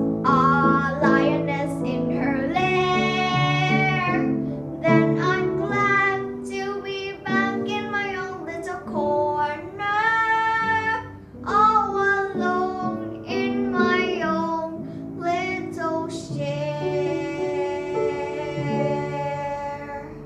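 A young girl singing a song with upright piano accompaniment, ending on a long held note over the last few seconds.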